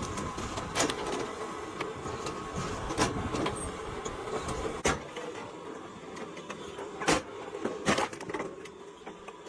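Power-driven log splitter running with a steady mechanical hum, broken by five sharp knocks of wood being struck and split. The low rumble drops away about halfway through.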